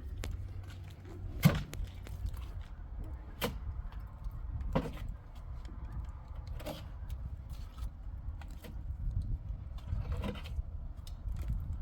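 Scattered sharp knocks and clinks of hand work on a building site, the loudest about a second and a half in, over a steady low rumble.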